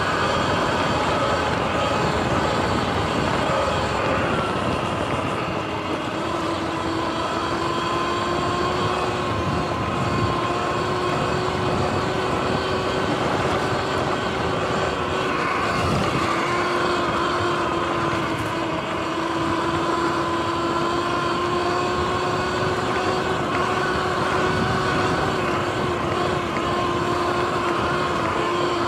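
Sur-Ron X electric dirt bike riding at speed: a steady electric-motor whine that drifts gently up and down in pitch with the throttle, over a constant rush of wind and tyre noise.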